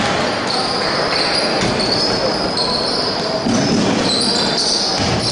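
Basketball game sounds: sneakers squeaking on the hardwood court and the ball bouncing, over a steady murmur of crowd voices.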